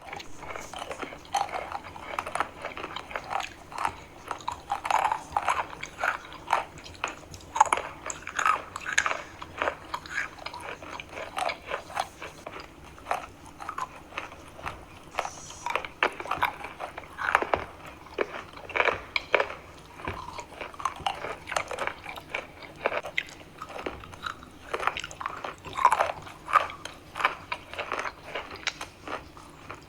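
A person biting and chewing pieces of chalk close to the microphone, with many irregular crunches, several a second.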